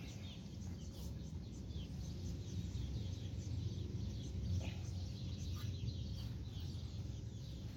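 Faint, scattered bird chirps over a steady low background rumble, with a few light clicks.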